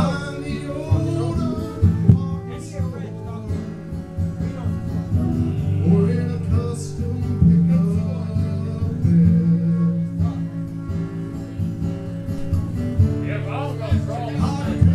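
Live acoustic music: a man singing while playing an acoustic guitar, with a flute playing along.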